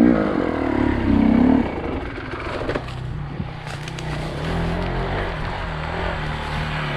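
Enduro dirt bike engine revving up and down in short blips, then settling to a lower, steady run about two seconds in, with a few sharp clicks in the middle.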